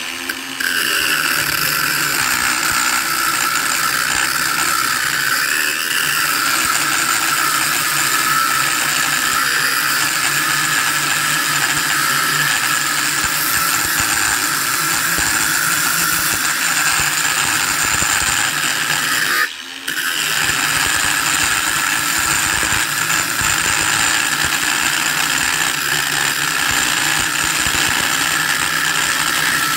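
Angle grinder starting up and cutting into the thin metal outer casing of a water pump's electric motor: a loud, steady high grinding, with one very short break about two-thirds of the way through.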